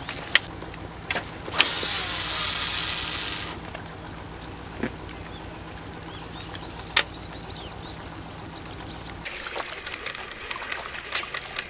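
A lure cast with a fishing rod and reel: a couple of sharp clicks, then line whirring off the reel spool for about two seconds as the frog lure flies out, followed by scattered clicks.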